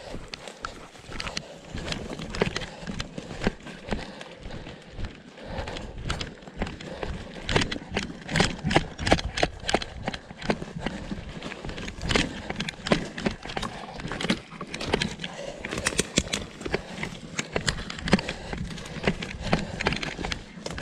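Footsteps tramping through forest undergrowth, with brush rustling and twigs snapping. The steps become louder and more frequent about seven seconds in, at a quicker, near-running pace.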